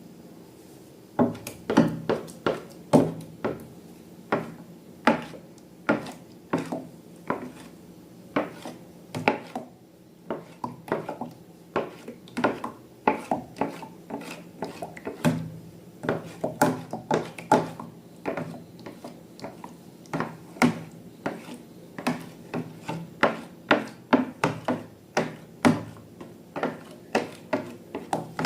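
Slime being mixed and worked in a bowl, giving an irregular stream of sharp clicks and taps, several a second, that starts about a second in.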